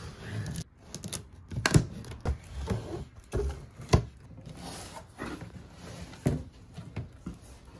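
Cardboard printer box being opened by hand: the packing tape is slit and the flaps are folded back. Irregular knocks and scrapes of cardboard run over a soft rustle.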